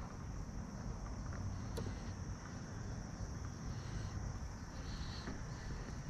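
Quiet outdoor ambience: a steady high chirring of insects such as crickets over a low rumble, with a single faint click about two seconds in.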